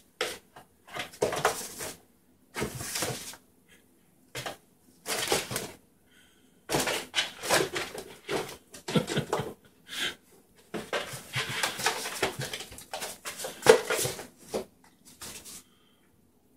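Empty cardboard 12-pack soda box rustling, scratching and scraping on a tile floor as kittens scramble in and bat at it, in irregular bursts with short pauses and a few sharp taps.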